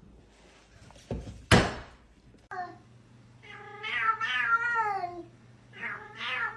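Two knocks about a second in, the second one the loudest. Then a cat meowing: a short meow, a long wavering meow lasting almost two seconds, and another starting near the end.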